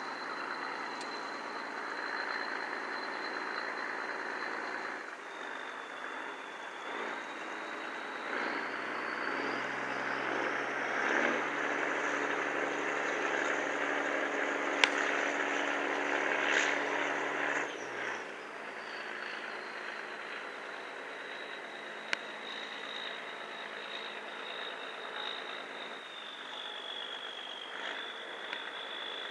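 Boat diesel engine running, with a high whine over the engine note; engine and whine climb about eight seconds in, hold, and drop back about eighteen seconds in. A few sharp clicks sound over it.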